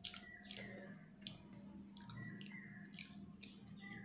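Close, wet eating sounds: fingers mixing fish and rice in a steel plate, with chewing and mouth smacks as short clicks, over a faint steady low hum.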